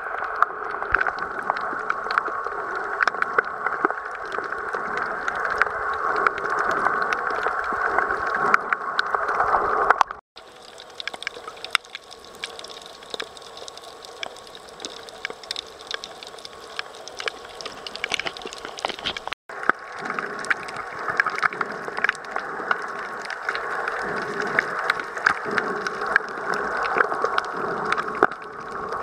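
Underwater sound picked up by a submerged camera: a steady, muffled hiss scattered with many small crackles and clicks. It cuts out briefly twice, about a third and two thirds of the way through, and the middle stretch is quieter.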